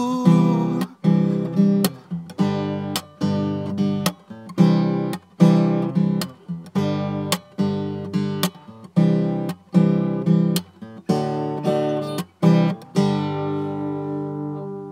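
Acoustic guitar strumming chords in a steady rhythm as the end of a theme song, finishing on a last chord that rings out and fades near the end. A sung line trails off right at the start.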